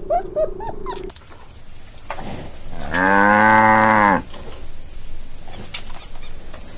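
A cow mooing once: a single long, loud call lasting about a second and a half, about three seconds in. In the first second, a dog's rapid string of short yelps trails off before a cut.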